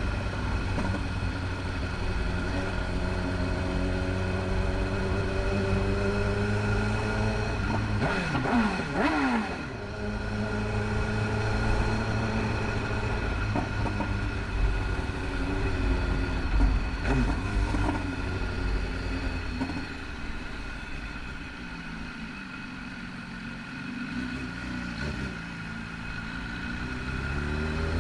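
BMW S1000RR's inline-four engine running while the bike is ridden, its revs rising and falling with the throttle. There is a quick swoop in pitch about eight seconds in, a quieter stretch in the later part, and the revs climb again near the end.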